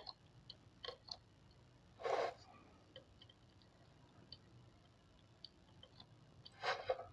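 Faint, scattered small clicks and taps of metal tweezers touching the LED chips on an LED bulb's circuit board, with two short, louder noisy bursts, one about two seconds in and one near the end.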